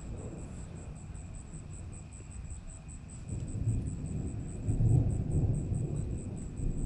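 Distant thunder rumbling low, building about three seconds in and loudest around five seconds in, from cloud-to-cloud lightning.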